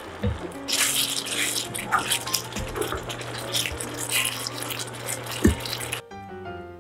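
Thick mapo tofu sauce sizzling in a nonstick pan while a wooden spatula stirs and scrapes through it, with frequent sharp clicks of the spatula against the pan. The cooking noise cuts off suddenly about six seconds in, leaving background piano ragtime music.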